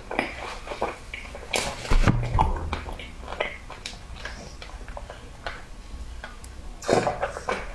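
Close-up eating sounds: wet chewing and mouth clicks, then sipping a drink through a straw, with a louder slurp near the end.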